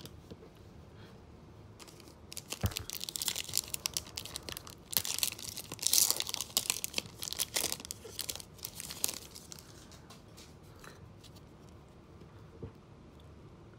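Panini NBA Hoops trading-card pack wrapper being torn open by hand: crinkling and tearing that starts about two seconds in and runs for about seven seconds, loudest in the middle, then dies down to light handling of the cards.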